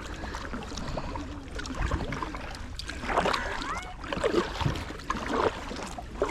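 Kayak paddle strokes dipping and splashing in shallow water, irregular, about one a second.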